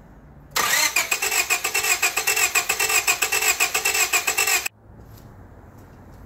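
Starter motor cranking a Honda Civic's 1.7-litre four-cylinder engine for about four seconds, with an even beat of about six pulses a second, then stopping abruptly: the engine cranks but does not catch.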